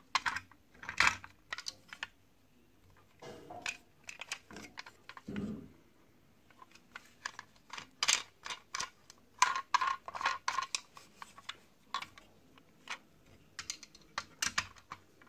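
Hard plastic toy train cars being handled: irregular clicks and clacks as a tender is turned over in the hands and set on plastic track, with a dense run of clicks about halfway through.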